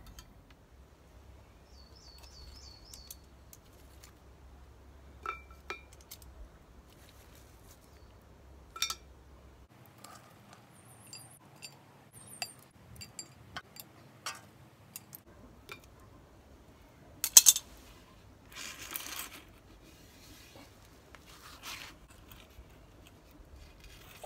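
Metal coal tongs clinking and lumps of hot charcoal clattering onto the cast-iron lid of a Petromax FT3 Dutch oven. Scattered light clinks, with a sharper clack about two-thirds of the way through and then about a second of crunching as coals settle.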